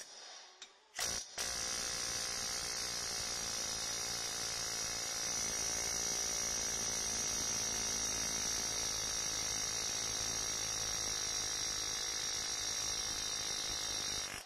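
Pneumatic air hammer running flat out, its bit hammering against the lip of a wheel bearing's inner race seized on the hub to vibrate it loose: a steady, loud buzz with a high whine. Two short blips about a second in come before it runs continuously.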